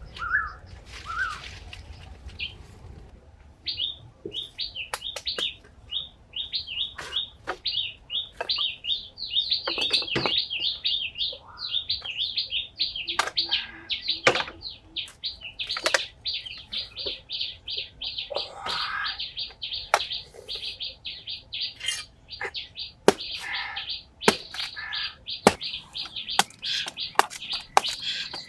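Small birds chirping in quick, repeated high notes, almost without pause from a few seconds in, with frequent sharp clicks and knocks throughout.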